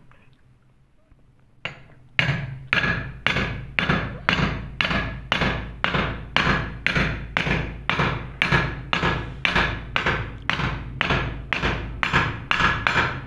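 Hand hammer striking a steel drift, one blow and then a steady run of about two blows a second, driving a steel sleeve into the bearing seat of an aluminium motorcycle wheel hub as a tight hammered fit.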